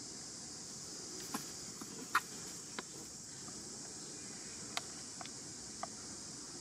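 Steady high-pitched drone of insects, with a handful of short sharp clicks scattered through it, the loudest about two seconds in.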